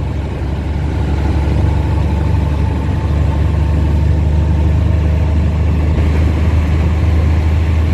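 Dump truck's diesel engine running steadily, its low drone growing a little stronger about three seconds in.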